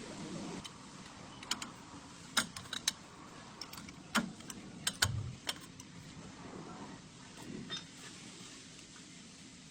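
Scattered sharp clicks and metallic knocks of hand tools on a car's steering parts, with a short low thud about halfway through.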